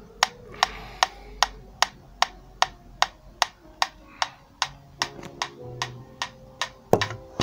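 Mechanical pendulum metronome ticking evenly at about 150 beats a minute. In the last two or three seconds a few quiet electric guitar notes join in, with one louder pluck near the end.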